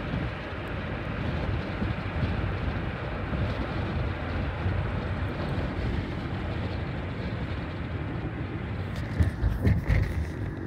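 Steady road noise inside a moving car: tyre and engine rumble with wind noise. A few short knocks and bumps come about nine to ten seconds in.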